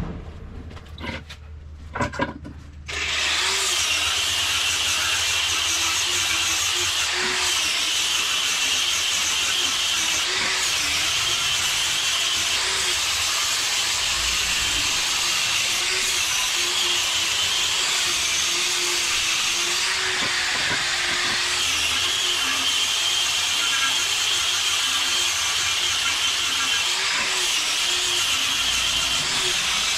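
A few knocks, then from about three seconds in a power tool running steadily with a loud hissing, grinding noise.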